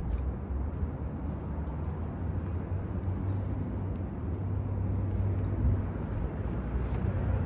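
Steady low rumble of car traffic on a city street, with faint footsteps ticking on the sidewalk.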